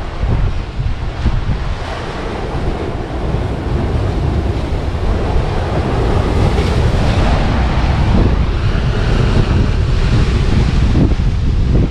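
Wind buffeting the microphone over a steady rushing noise, which swells and grows brighter about halfway through.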